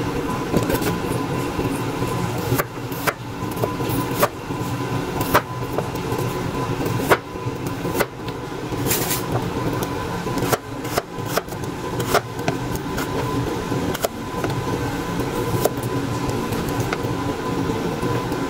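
Kitchen knife slicing garlic cloves on a cutting board: irregular sharp taps of the blade hitting the board, roughly one or two a second, over a steady background hum.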